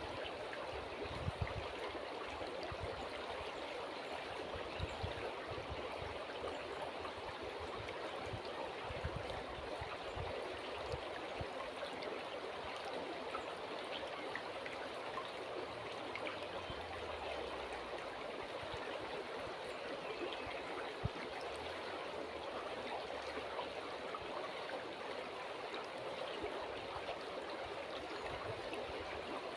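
River water flowing steadily over stones, an even rushing and babbling with no pauses. A few brief soft low bumps come and go underneath.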